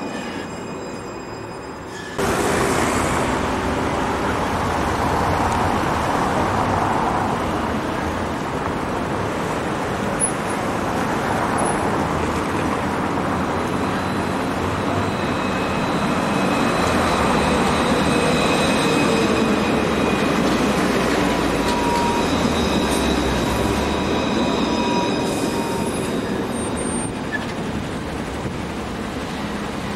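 Alstom Citadis tram running along street track, its wheel and motor noise mixed with road traffic, with faint high whines in the middle and later part. The sound steps up suddenly about two seconds in.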